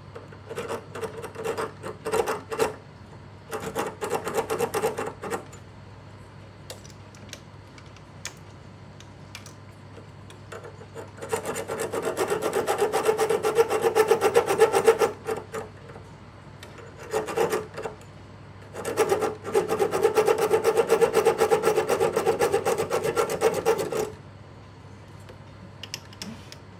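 A hand file rasping rapidly against a thin metal rod clamped in a small lathe, in a few short bursts, then two longer runs of about four and five seconds. The filing is shaping a new worm shaft for a wall clock's striking train.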